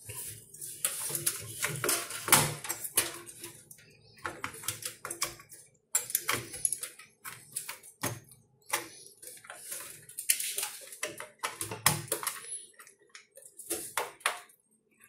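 Irregular clicks, taps and rustling of hands working inside a desktop computer case as a CPU cooler is fitted back onto the motherboard and cables are pushed aside.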